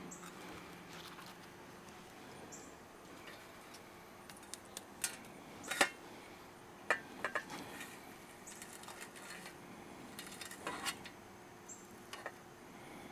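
Metal fork tapping and scraping on an enamel plate as it cuts through a chicken-fried pork steak: a few faint, scattered clicks.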